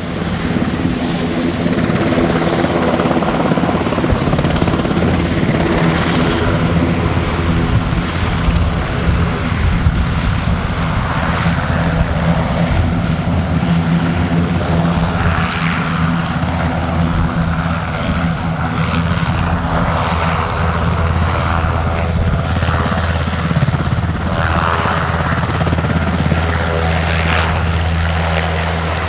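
Sikorsky S-92A twin-turbine helicopter running on the ground with its main rotor turning: a loud, steady drone of rotor and engines.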